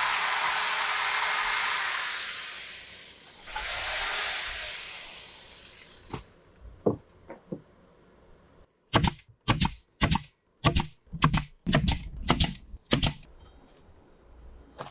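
A power tool running with a steady whoosh, then winding down over the first few seconds, with a second short run just after. Later come about eight sharp, evenly spaced knocks, under two a second, like hammer blows on wood.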